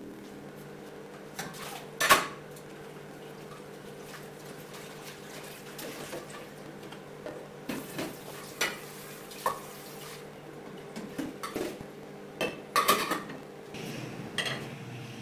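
A hand stirring through a bowl of silkworm pupae, with irregular clicks and light rattles as the pupae knock together and against the plastic bowl, over a steady low hum. The loudest clicks come about two seconds in and again near the end.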